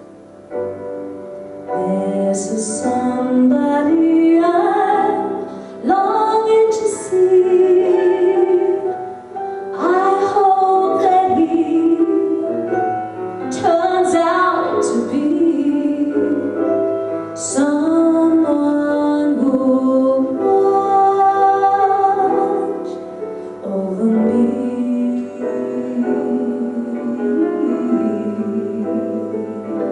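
A woman singing a ballad with long held, vibrato notes over instrumental accompaniment.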